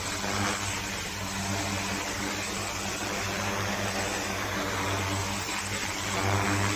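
Pressure washer at work: a steady engine drone under the hiss of the high-pressure water spray.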